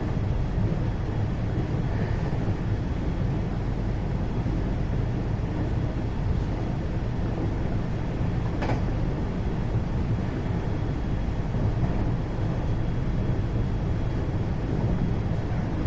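Cabin running noise of a 521 series electric multiple unit motor car while it runs between stations: a steady low rumble of wheels on rail, with a single sharp click about halfway through.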